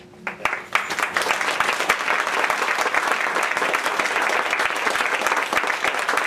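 Audience applauding: many hands clapping, which swells up within the first second and then holds steady and loud.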